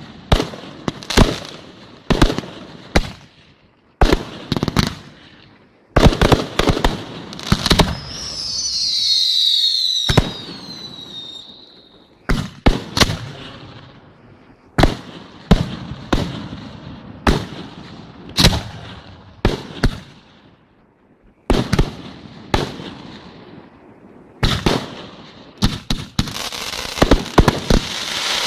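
Fireworks display: a rapid series of sharp shell bursts, some followed by crackle. About eight seconds in, several whistles fall in pitch together for a few seconds. Near the end, dense crackling with repeated bangs.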